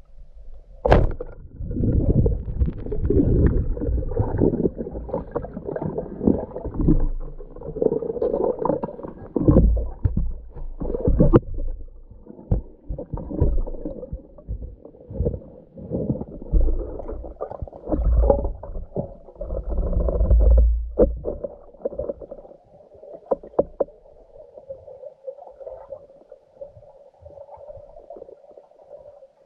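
Muffled underwater water noise heard through a waterproof camera housing: irregular sloshing and gurgling with heavy low rumbles and scattered sharp knocks, as the diver and speargun move along the riverbed. After about twenty seconds it settles into quieter water noise with a faint steady hum.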